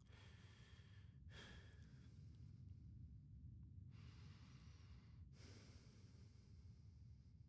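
Very quiet, slow breathing picked up by a close headset microphone, a few soft breaths in and out over a low, steady room rumble.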